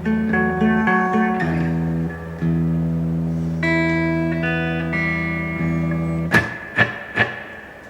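Gibson Les Paul electric guitar played through an Electro-Harmonix Oceans 11 reverb pedal: single notes and chords ringing with reverb, then three sharp muted strums about half a second apart near the end, the reverb fading after them.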